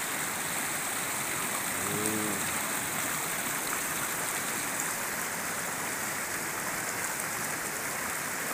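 Shallow rocky river rushing and splashing over boulders and fallen branches below a dam weir: a steady, even rush of water.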